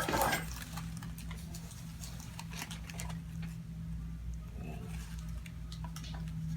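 Hands shifting on a patient's head and neck to take hold for an occiput adjustment: faint rustling and small scattered ticks over a steady low hum.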